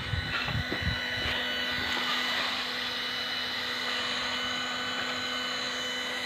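A steady mechanical hum with a high whine, like a small motor running, with a few low thumps in the first second.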